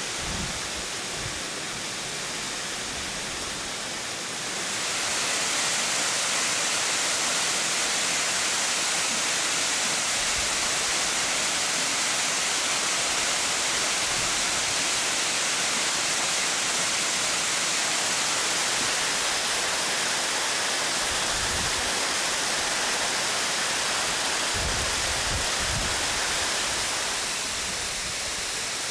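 Morricana waterfall: water falling steadily in a continuous rushing hiss. It grows louder about four seconds in and eases back near the end.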